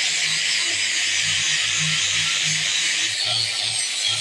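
Angle grinder disc grinding the steel jaw of blacksmith's tongs: a steady, high-pitched hissing grind with no letup.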